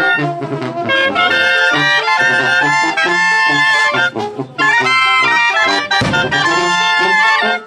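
Brass band music: several brass instruments play a melody over a bass line.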